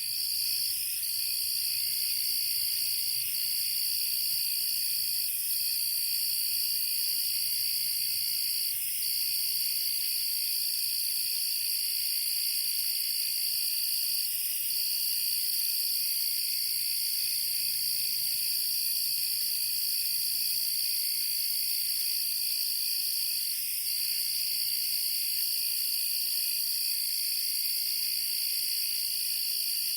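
Chorus of crickets and grasshoppers: a loud, continuous high trill with a few brief gaps, over several fainter overlapping trills at lower pitches and a high hiss of insect song.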